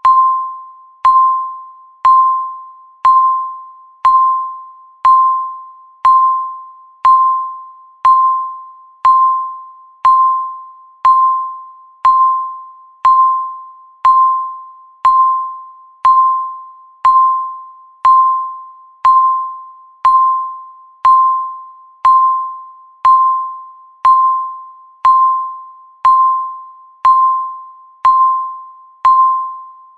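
Countdown timer beep: one mid-pitched electronic tone struck once a second, each beep starting sharply and fading away before the next, marking each second left on the countdown.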